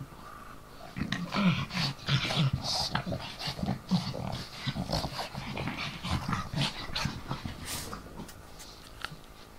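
Two pugs play-wrestling, making rough, grunting dog noises in quick, uneven bursts that thin out toward the end.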